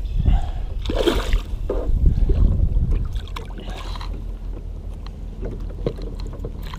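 Water splashing and sloshing against the side of a kayak as a hooked smallmouth bass is brought alongside, loudest in the first three seconds, with low rumble from the water and wind on the microphone. After that it settles, with a few light knocks on the hull.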